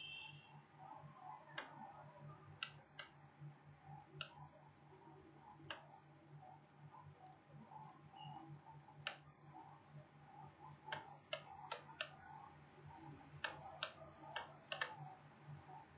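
Computer mouse clicking at irregular intervals, single clicks and quick pairs, faint over a steady low hum.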